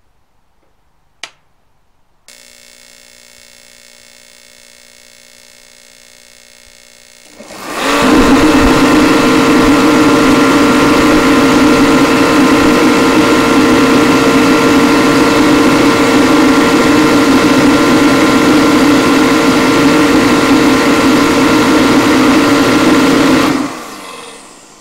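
Mr. Heater kerosene torpedo heater starting up: a click, a faint hum from about two seconds in, then a loud steady roar of the fan and burner from about eight seconds in that stops near the end. It stays lit, the sign that the newly fitted flame sensor is detecting the flame.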